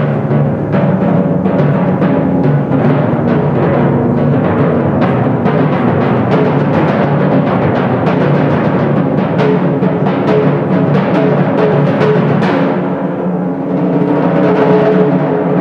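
Two sets of copper-bowled timpani played as a duet: rapid, dense stick strokes over ringing, pitched drum tones. The playing eases briefly about thirteen seconds in, then picks up again.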